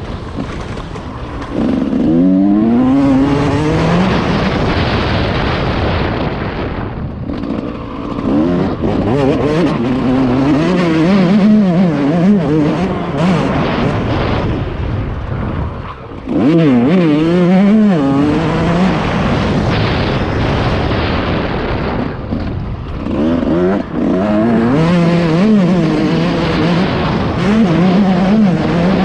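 Yamaha YZ 144 two-stroke motocross bike engine revving up and down under changing throttle, its pitch climbing and falling again and again, with sudden short drops in revs a few times as the throttle is chopped.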